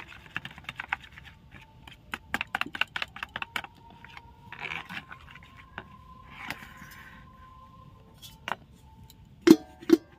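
Wire whisk clicking rapidly against the side of a plastic bowl while stirring thin gram-flour batter, in two spells, then a couple of softer scraping swishes. Near the end a steel bowl is set over it as a lid with two loud knocks about half a second apart.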